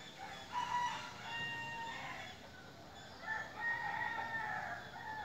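A rooster crowing twice. Each crow is a long drawn-out call; the second begins about three seconds in.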